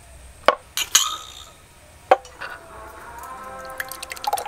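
Glass tumblers and a glass bowl clinking, three sharp knocks with a short ring. Faint background music comes in about halfway through.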